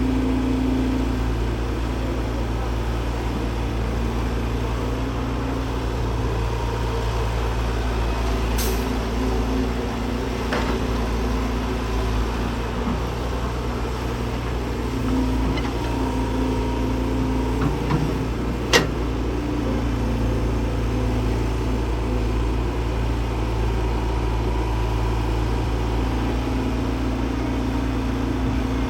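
Heavy construction machine's diesel engine running steadily with a low rumble, broken by a few sharp knocks, the loudest about 19 seconds in.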